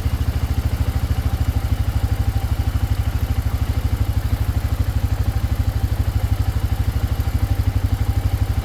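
Four-wheeler (ATV) engine running at a steady idle, an even low putter that holds unchanged throughout.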